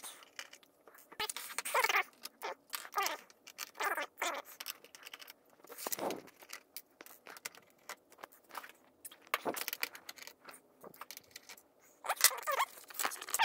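Clicks, rattles and scrapes of the monitor's sheet-steel and plastic parts being handled, with a few short squeaky scrapes.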